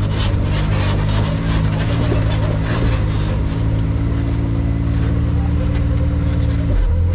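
Side-by-side UTV engine running at a steady pitch, with a brief change in its note near the end.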